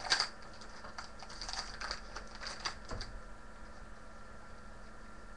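Trading cards and their pack wrapper being handled: quick crinkling and clicking rustles, loudest right at the start, that stop about three seconds in.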